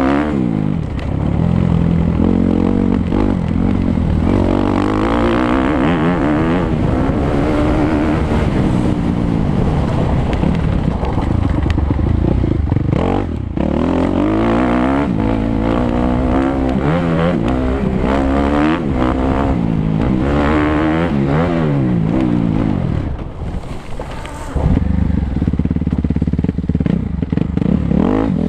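Suzuki 250 motocross bike engine revving up and down continually as it is ridden round a dirt track. The throttle shuts briefly near the end, about 23 seconds in, before it picks up again.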